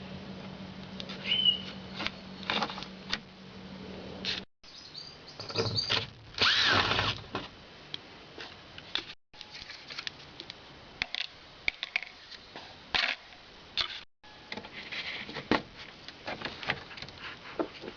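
Hand work on a car door's trim and handle: scattered clicks and scrapes of tools and plastic parts, a short squeak about a second in, and a louder rasping scrape around six seconds in.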